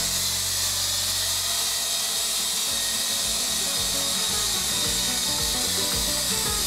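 Attop YD711 coaxial RC helicopter's electric motors and rotors running steadily in flight, a continuous high-pitched buzz, with music underneath.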